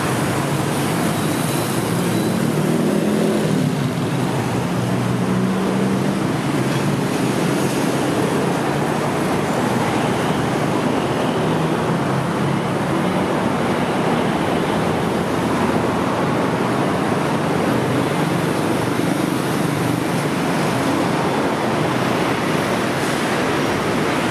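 Steady road traffic on a busy city street: cars and taxis driving past, a continuous hum of engines and tyres.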